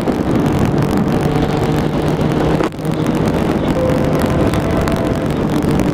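Sport motorcycle's engine running at highway speed under heavy wind rush on the bike-mounted microphone, with a brief dip in level about two and a half seconds in.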